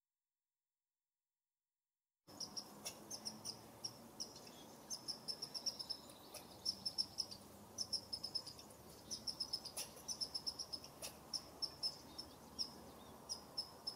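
Dark-eyed junco giving high, rapid twittering trills, in short runs again and again, with a few faint clicks; the sound starts abruptly about two seconds in.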